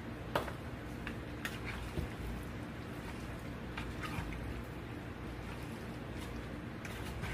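Spoon stirring creamy pasta in a pan: wet squishing with a few short, sharp taps of the spoon on the pan, over a steady low hum.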